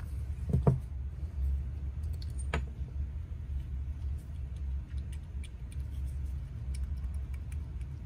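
Steady low background hum, with a few light clicks and taps of a screwdriver and small screws as the metering-diaphragm cover is unscrewed from a small chainsaw carburetor and the carburetor is handled.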